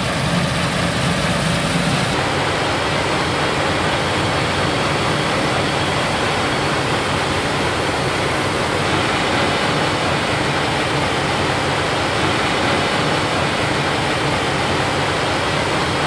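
CLAAS Lexion 8800 combine harvester working in standing wheat: a steady machine rumble and hiss from the engine and threshing gear. A low hum drops away about two seconds in.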